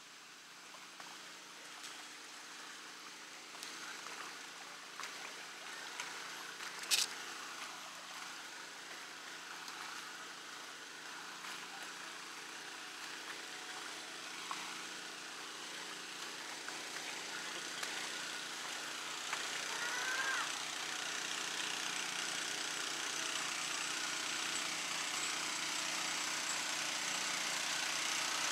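Small engine of a gold suction dredge running steadily in a creek, a low hum with a slow pulse that grows louder toward the end, over the rush of water. A single sharp click about seven seconds in.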